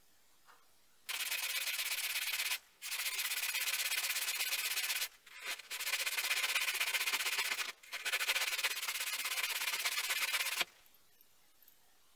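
Abrasive sanding sponge rubbed hard back and forth over a metal lathe toolholder to deburr and smooth it, a rasping scrub in four spells of about one and a half to three seconds with short breaks.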